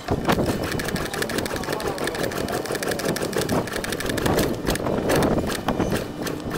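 Honda Biz C100's carbureted 100 cc single-cylinder engine being kick-started cold after more than two months unused. Repeated kicks turn it over with a rapid mechanical clicking and rattling, but it does not catch without the choke.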